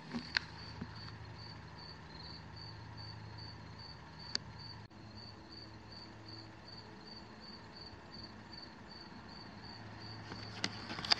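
A cricket chirping steadily in the background, a short high chirp about three times a second. There is a faint low hum throughout, and a few light clicks near the end as the plastic bag is handled.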